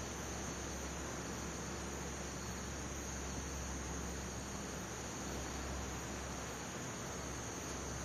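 Room tone in a pause: a steady hiss with a low hum underneath and a thin, constant high-pitched tone.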